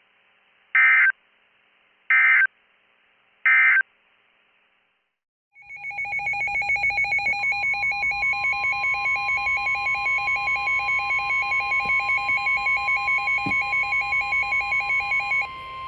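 Three short screeching bursts of NOAA Weather Radio SAME digital data tones, the end-of-message code that closes a warning. After a short pause a weather alert receiver's rapid electronic warble alarm begins. About two seconds later the steady weather-radio alert tone near 1050 Hz joins it, marking the start of the next warning. The warble stops near the end.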